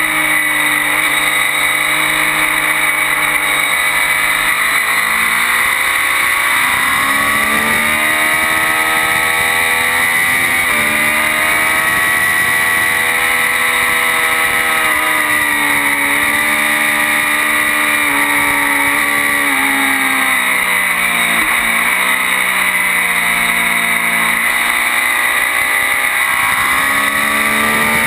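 Triumph Daytona 675's three-cylinder engine running hard on track, its pitch rising and falling through gear changes, with a deep drop about three quarters of the way through, under steady wind rush.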